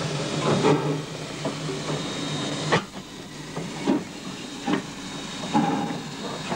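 Queensland Rail C17-class 4-8-0 steam locomotive passing slowly at close range, with steady steam hissing and short beats about once a second. The hiss is loudest for the first three seconds, then drops away and leaves the beats plainer.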